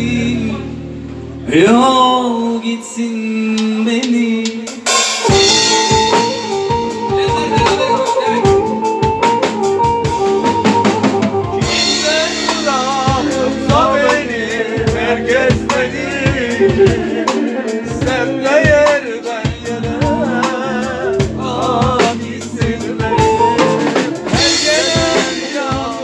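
Live band playing Turkish arabesk music. A melody line glides and sustains over held tones, then about five seconds in the drum kit comes in with steady snare and bass-drum beats under a wavering melody.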